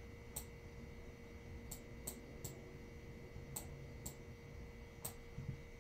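Faint, scattered sharp clicks and taps, about seven across a few seconds, from a stylus tapping on a tablet or touchscreen as handwriting is entered, over a faint steady hum.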